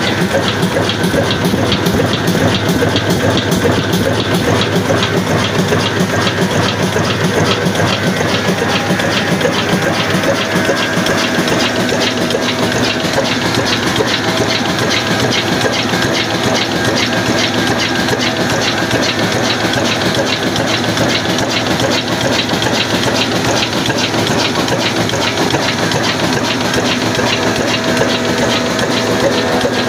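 Old horizontal single-cylinder stationary diesel engine, a Pakistani-made 'black engine', running steadily with its large flywheel turning. It gives an even, rapid mechanical clatter.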